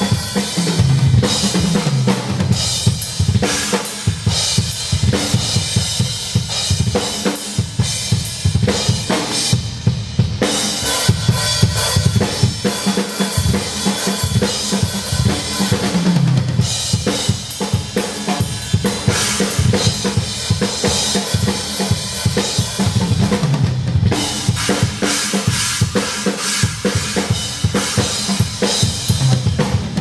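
TAMA drum kit played hard and fast: kick drum, snare and cymbals in a dense groove, with fills running down the toms from high to low at the start and about halfway through.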